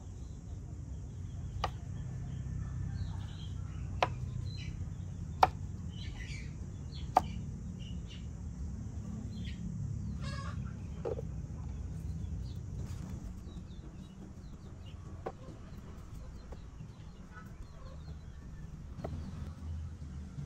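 A large knife knocking on a wooden cutting board as cassava is peeled and cut: four sharp knocks in the first half, then a few fainter ones. Occasional bird calls in the background.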